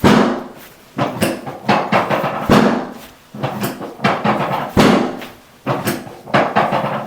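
A series of irregular thumps, roughly one a second, each sharp at the start and dying away quickly.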